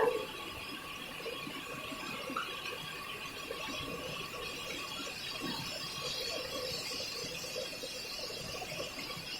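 Heavy rain falling steadily, a constant hiss with scattered pattering drops. A short high squeal fades out right at the start.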